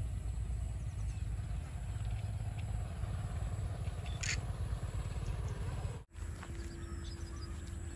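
Outdoor wind rumbling and buffeting on the microphone. After a cut about six seconds in, a faint steady hum joins it.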